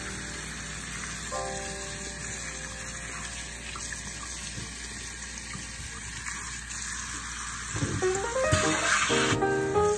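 Tap water running steadily onto rose petals in a plastic colander. Soft piano music plays underneath and gets louder near the end.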